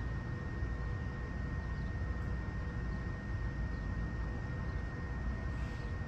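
Steady outdoor background rumble at a railway platform, with a thin high-pitched tone held steady over it; no train passes.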